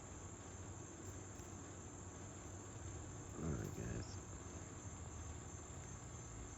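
Steady, high-pitched chorus of insects chirring in the background, with no break or change in beat.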